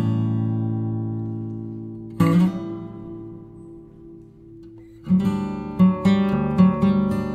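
Background music on strummed acoustic guitar. A chord rings out and a second is struck about two seconds in, both fading away, then steady rhythmic strumming starts again about five seconds in.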